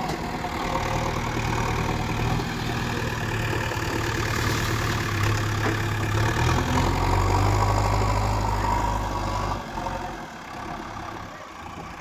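Heavy diesel engine running steadily, growing a little louder past the middle, then dropping away sharply near the end.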